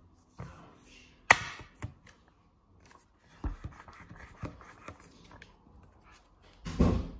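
Small clicks and handling of a plastic straw being pushed into a sealed plastic bubble tea cup, with one sharp click about a second in, then a short slurp through the straw near the end.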